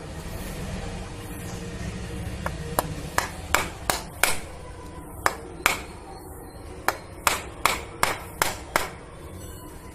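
A metal screwdriver being struck into the eye of a husked coconut to bore a hole: about a dozen sharp knocks in short runs of three to five, starting a couple of seconds in.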